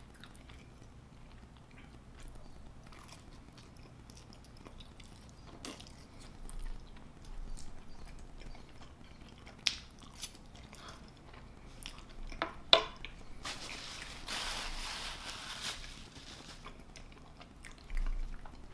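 Close-miked chewing and wet mouth sounds of someone eating chili cheese fries, with scattered faint clicks and a couple of sharper ticks. There is a brief hissing noise about two-thirds of the way through.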